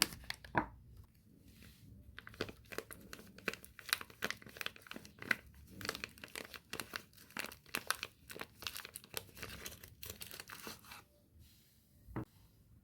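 Soap packaging crinkling and tearing as a bar of soap is unwrapped by hand: a dense run of small crackles that dies away near the end, followed by one soft knock.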